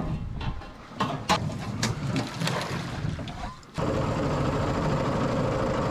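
Scattered knocks and splashes at first. Then, about four seconds in, the boat's 212cc single-cylinder inboard engine starts running steadily under power, with the rush of spray from its surface-drive propeller.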